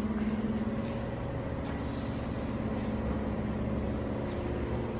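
A vehicle's engine running steadily, a low even hum.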